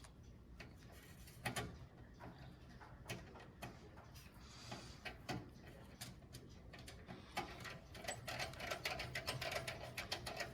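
Faint clicks of a screwdriver turning a screw into a motherboard standoff, with a quick run of light ticking in the last couple of seconds as the screw is driven home.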